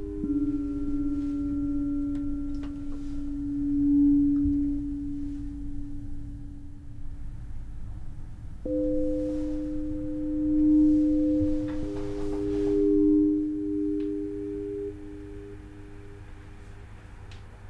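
Background music of slow, held, pure electronic tones, a low chord that shifts to new notes about nine seconds in and again a few seconds later, then fades near the end, with a low rumble beneath.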